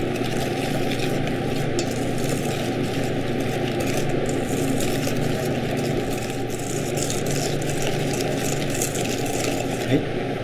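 Wire balloon whisk beating flour into egg yolks and sugar in a stainless steel bowl for pastry cream, its wires scraping and clicking irregularly against the bowl, over a steady low hum.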